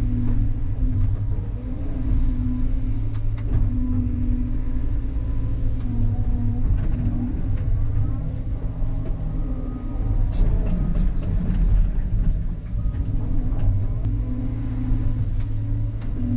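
Cat 320 hydraulic excavator's diesel engine running steadily under load while it digs, heard from inside the cab, with scattered clicks and knocks from the working machine.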